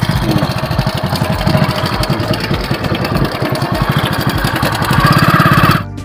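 Motorcycle engine running as the bike rides off, its rapid firing pulses under a haze of wind on the microphone, getting louder about five seconds in. It cuts off abruptly just before the end, replaced by music.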